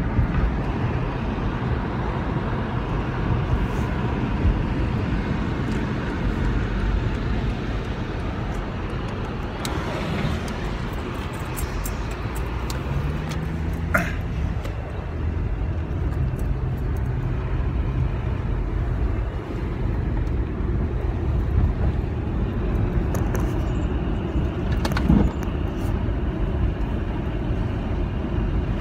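Car running, heard from inside the cabin: a steady low rumble of engine and road noise, with a few light clicks.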